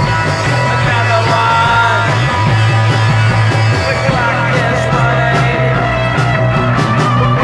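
Punk rock song played by a band on bass guitar, electric guitar, drums and ARP synthesizer, with a steady driving bass line. The drum and cymbal hits come through more strongly about four and a half seconds in.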